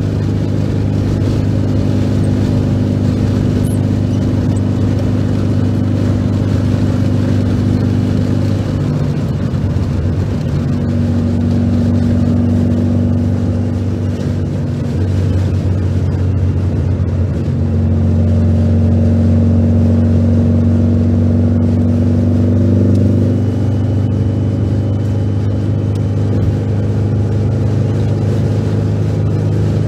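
Air-cooled flat-four engine of a 1973 VW 1302 Super Beetle, fitted with dual Weber carburetors, running at highway cruise, heard from inside the cabin with road noise. The engine note shifts in pitch a few times, near the middle and about three-quarters through.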